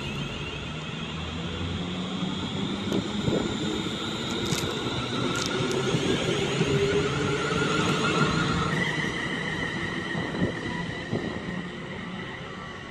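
Two coupled Class 350 Desiro electric multiple units pulling away, their traction equipment whining in several steady tones over a low rumble. The tones step to new pitches about nine seconds in.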